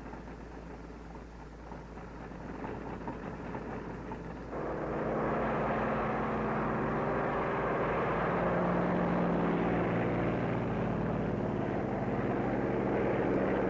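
Propeller aircraft engines running steadily, faint at first and then suddenly much louder about four and a half seconds in, with a steady engine drone whose pitch shifts slightly.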